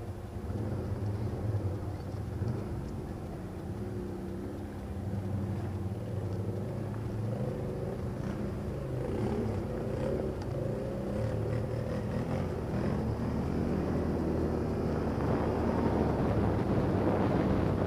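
ATV engine running as the quad is ridden along a rough dirt trail, with rattle and tyre noise, getting louder over the last few seconds.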